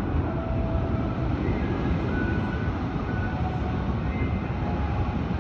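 Steady low rumbling outdoor noise: wind buffeting the microphone high up, mixed with distant city traffic below.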